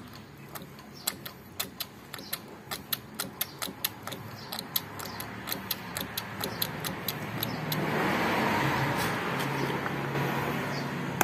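Front brake lever of a Yamaha Soul GT scooter being pumped over and over to bleed air from the hydraulic disc brake: irregular sharp clicks, about two or three a second. In the last few seconds a rushing noise with a low steady hum swells in and becomes the loudest sound.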